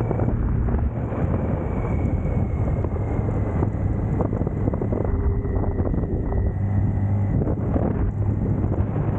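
BMW K1600 GTL motorcycle's inline-six engine running steadily at cruise, with heavy wind noise on the microphone.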